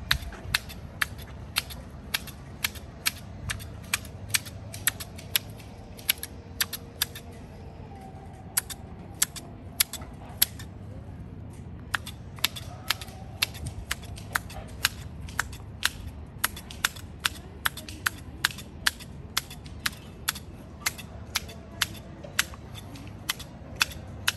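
Manual hedge shears snipping through conifer hedge foliage: sharp, even clicks of the closing blades, about two a second.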